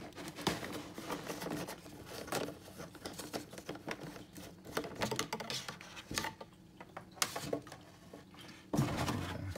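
Plastic bottles and a plastic container being handled: a run of irregular clicks, taps and knocks.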